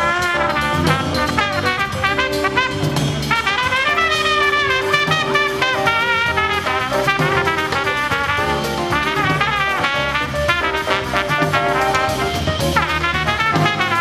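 Show music led by brass instruments, in a lively jazzy style with a steady beat.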